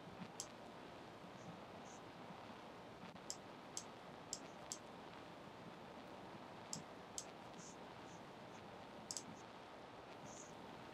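Computer mouse clicking: about nine short, sharp clicks spaced irregularly, some in quick pairs, over a faint steady hiss.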